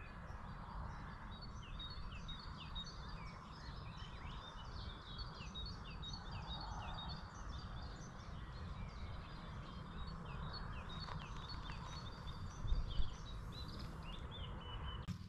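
A chorus of many small birds chirping and twittering at dawn, over a steady low rumble. Two low bumps come near the end.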